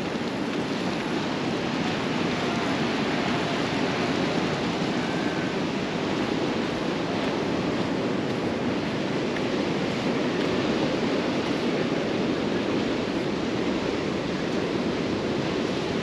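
Steady rushing wash of sea surf, holding at an even level without distinct surges.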